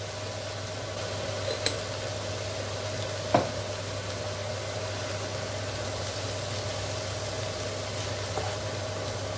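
Mixed sliced vegetables sizzling steadily in a hot pan as they sauté so their water cooks off, with a sharp tick about a second and a half in and a single knock about three and a half seconds in. Near the end a wooden spatula begins stirring them.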